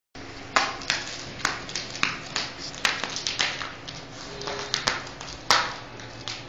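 Sharp, irregular taps and scratches, about a dozen, of a kitten's paws and claws striking a woven plastic mat as it pounces, the loudest about half a second in and again near the end, over a steady low hum.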